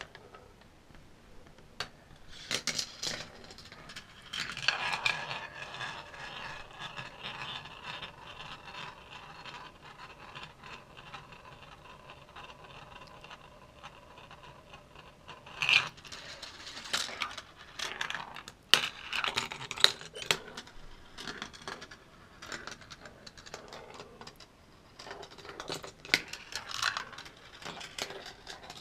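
Marbles running through a Gravitrax marble run on plastic track pieces and metal rails. A long steady rolling run with a faint ringing tone starts about four seconds in. From about halfway it gives way to a string of sharp clicks and clacks as the marbles drop, strike and rattle through the track elements.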